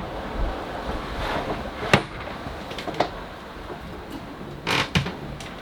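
A few sharp knocks and clunks, about once a second or so, as the extending salon table is pushed back together, over the steady rushing noise of the sailboat under way.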